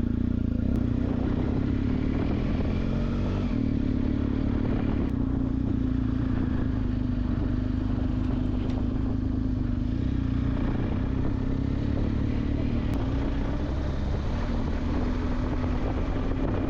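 Motorcycle engine running at a steady speed while riding, with low rumbling road and wind noise.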